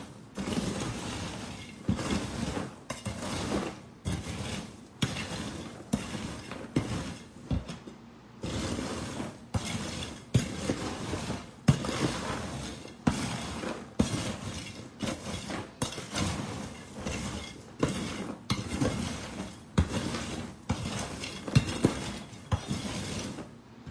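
Irregular clattering and clinking of kitchenware, like a pan, bowl or utensils being handled, a few knocks a second throughout.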